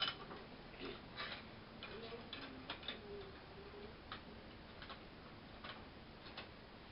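Irregular light clicks and taps of a folding wheelchair's metal tube frame being handled and opened out, about a dozen scattered ticks.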